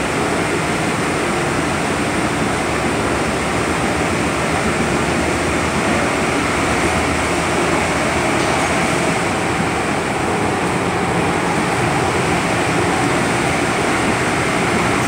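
Hong Kong MTR M-train passenger car running at speed, heard from inside the car: a steady rumble of wheels on rails with rushing air noise.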